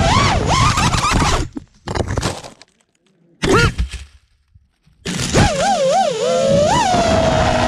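FPV quadcopter motors and propellers whining, the pitch swinging with the throttle, then cutting out in a crash into branches and leaf litter about a second and a half in. After a short blip and a pause the motors spin back up about five seconds in, the whine wobbling before it steadies.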